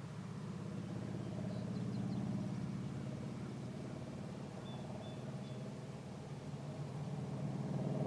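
A steady low droning hum that swells and eases, with a few faint high bird chirps about one and a half and five seconds in.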